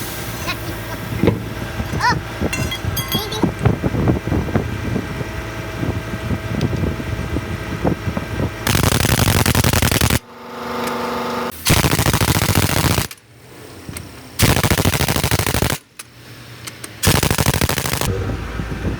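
Scattered metallic clicks and knocks of workshop work, then four loud rattling bursts of about a second and a half each, with short pauses between, typical of a power tool run in bursts.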